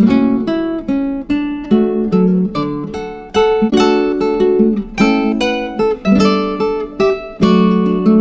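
Acoustic guitar music: chords strummed and notes plucked in a steady run, each one ringing out and fading before the next.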